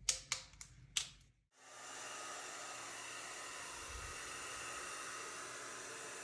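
A few sharp clicks, then about a second and a half in an electric air blower starts and runs with a steady hiss of rushing air, blowing across the wet poured acrylic paint to spread it into a bloom.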